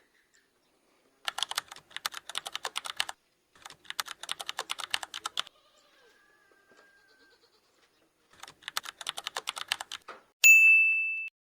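Three bursts of rapid clicking, like fast typing, each lasting about two seconds. About ten and a half seconds in, a loud, steady, high-pitched electronic beep starts sharply and fades within a second.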